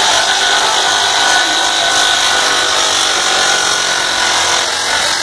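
Combat robots' weapon and drive motors running with a steady whine and a grinding hiss as the robots push against each other.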